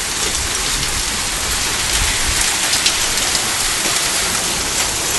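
Torrential rain pouring down steadily, loud and unbroken, with a few sharp ticks of heavier impacts scattered through it.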